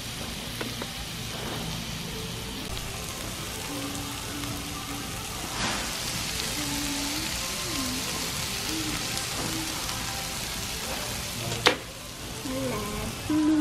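Bulgogi and samgyeopsal pork belly sizzling on a tabletop electric grill plate, a steady frying hiss. There is a single sharp click near the end.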